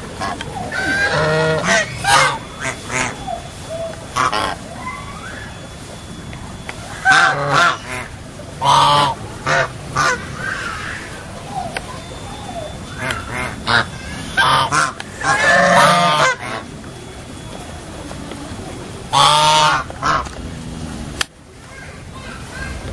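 A flock of domestic waterfowl calling in four loud bouts of rapidly repeated calls, with quieter gaps between.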